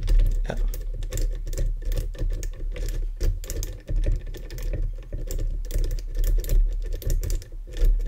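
Bogota rake being scrubbed in and out of the keyway of an ACE closed-shackle pin-tumbler padlock under tension. It makes a fast, irregular run of small metallic clicks and scratches as it rattles over the pins, some of which are security pins. The lock does not open.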